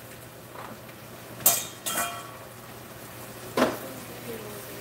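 Metal cookware clanking: three sharp knocks from a stainless steel skillet and a utensil, about a second and a half in, half a second later, and again past three and a half seconds. The second knock rings briefly.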